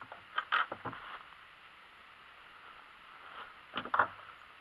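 Hi-Point 995TS 9mm carbine being handled on a shooting rest: two short bursts of clicks and knocks, one about half a second in and one near the end.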